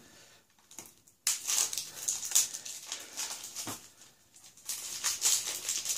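Cellophane shrink wrap on a CD case crinkling and crackling as it is handled and peeled off, in irregular bursts from about a second in and again near the end.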